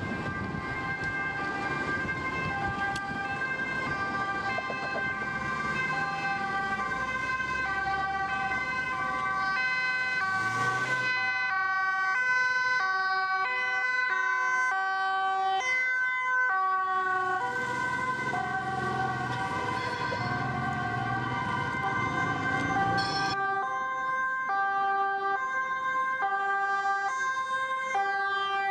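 Dutch police vehicles' two-tone sirens sounding as they drive past, alternating between a high and a low note about every two-thirds of a second, with more than one siren heard at once. Engine and tyre noise from the passing vehicles swells at the start and again past the middle.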